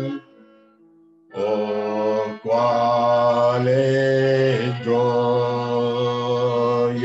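Slow music of long, held, droning notes. It drops out briefly just after the start and comes back about a second later.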